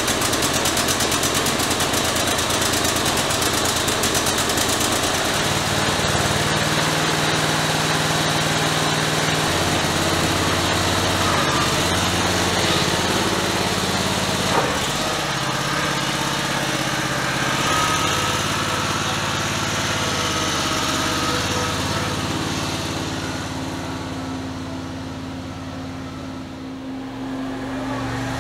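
21-horsepower small engine of a motorized couch running, its pitch stepping up and down several times with the throttle as the couch pulls away. The engine fades as the couch drives off near the end.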